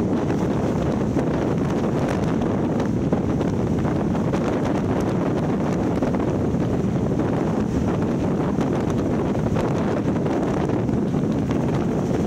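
Wind rushing over the microphone aboard an offshore powerboat running at speed, mixed with the rush of the boat over the water: a steady, even roar with no distinct engine note.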